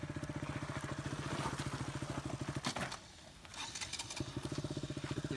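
A small engine running with a fast, even, low pulse. It cuts out about three seconds in and picks up again about a second later.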